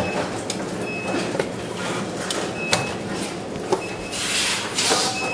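Power-bank assembly-line workroom noise: a steady hum of equipment with short high beeps about every one and a half seconds and scattered small clicks, then a burst of hiss about four seconds in.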